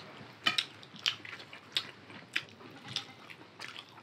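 Close-up eating with the hands: wet chewing and lip smacks, a short click a little under twice a second, with fingers working rice and curry on steel plates.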